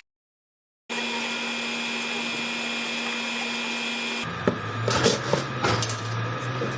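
A small power tool's motor running steadily with a fixed whine. A bit past halfway it gives way to a lower motor hum, with several sharp knocks and clatter.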